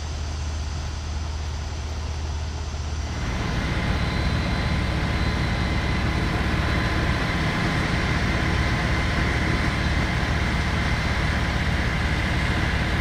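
Engine-driven generator of a mobile lighting mast running steadily, a low hum with a thin steady whine above it. It gets louder about three seconds in.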